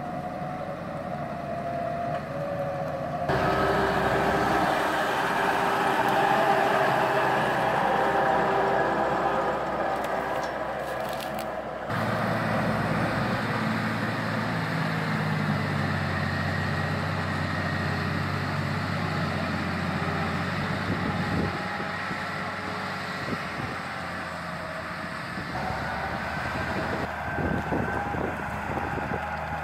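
Valtra tractor's diesel engine running under load as it pulls a forest trailer through mud. The engine sound changes abruptly three times, about 3, 12 and 26 seconds in.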